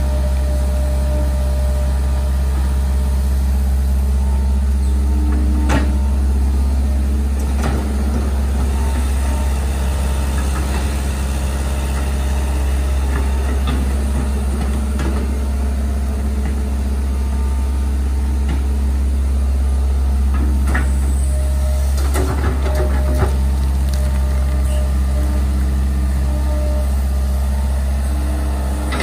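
Hitachi EX120 hydraulic excavator working: its diesel engine runs steadily, with a whine that comes and goes as the boom and bucket move, and a few short knocks as the bucket digs, lifts and dumps soil.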